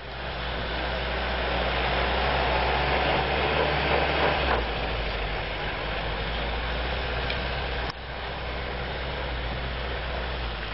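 UAZ off-road vehicle's engine running hard as it tries to climb an icy slope on rear-wheel drive only, wheels spinning on ice and snow. It is loudest early on, then eases slightly, with a brief dip about eight seconds in.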